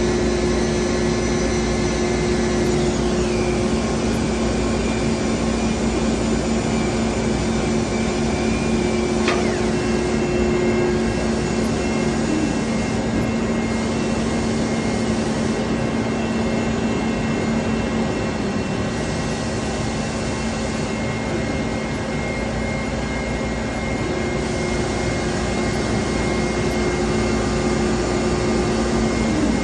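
Citizen K16E VII CNC Swiss-type lathe running, a steady mechanical hum with whining tones on top. The whine changes pitch or drops out a few times: a high tone falls about three seconds in, there is a brief sweep near the ten-second mark, and a lower tone cuts out around twelve seconds and returns later.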